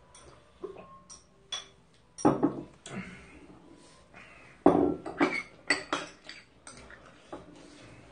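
Chopsticks and ceramic bowls clinking and knocking on a table as two people eat, with scattered small clicks and louder clatters about two and five seconds in.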